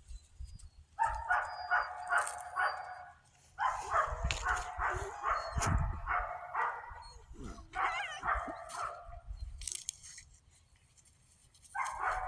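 Young puppies yapping in quick runs of high barks, about four or five a second. The runs come in several bouts with short pauses between them, and a new bout starts near the end.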